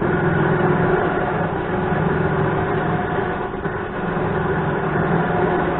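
Electric trailer winch running under its wireless remote, its motor and gear train spooling cable with a steady hum and whine that starts suddenly.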